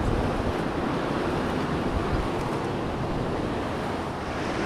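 Sea surf washing and breaking against the boulders of a rock jetty, a steady rushing noise, with wind noise rumbling on the microphone.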